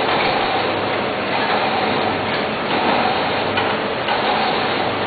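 MK T20 teabag packing machine running, with a steady, dense mechanical noise.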